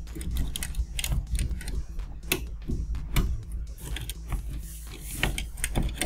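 Plastic wire-harness connectors being unlatched and pulled from their sockets: an irregular run of sharp plastic clicks and wire rattles.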